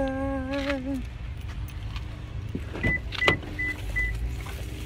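A car's warning chime beeps four short times, with a few clicks from the door just before, as the driver opens up and gets in. A low rumble runs underneath, and a held pitched note ends about a second in.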